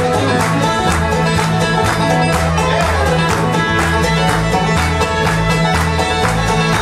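Bluegrass band playing live at a fast, steady beat: fiddle, picked banjo and upright bass.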